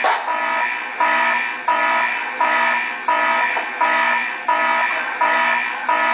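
Electronic alarm-like tone beeping in an even pulse, about three beeps every two seconds, each starting sharply and fading, played through computer speakers.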